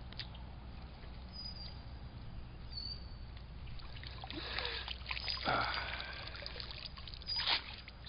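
A largemouth bass splashing in shallow weedy water as it is hooked and lifted out, in three short bursts over the second half, the last two loudest, over a steady low hum.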